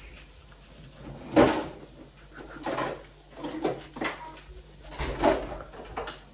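A kitchen pull-out drawer knocks open, with one loud knock about a second and a half in. Then comes a series of lighter clatters as plastic cups and lids are rummaged through and taken out.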